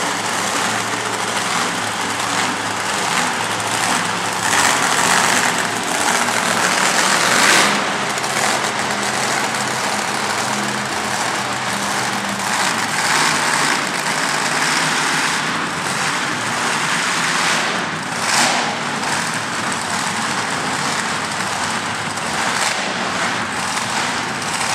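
Monster truck engines running loud inside an arena, swelling a few times.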